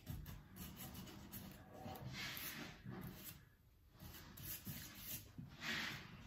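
A half-inch bristle brush stroking contact adhesive along the edges of snooker cushion rails: soft, faint scratchy rubbing, with two louder strokes about two seconds in and near the end.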